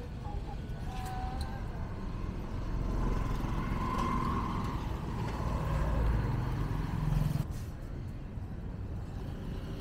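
A motor vehicle passing close by on the street: its engine rumble builds over a few seconds and drops away suddenly about seven and a half seconds in, over the general street noise.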